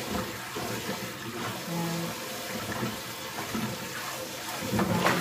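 Kitchen faucet running steadily into a metal pot, with splashing as hands rub and rinse garlic scapes under the stream.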